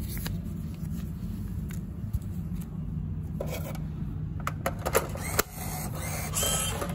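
Steady low hum from the refrigerated vending machine, which is running with its door open, with a few short clicks and rattles of its parts being handled, about halfway through and near the end.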